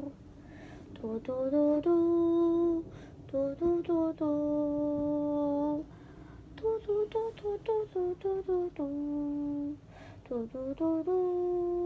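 A child humming a tune, with notes that step up and down and several long held notes.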